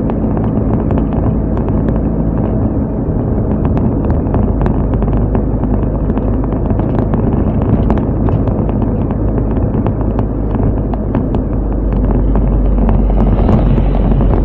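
Car driving, its engine running under a steady rumble of road and wind noise, with many small ticks and rattles throughout.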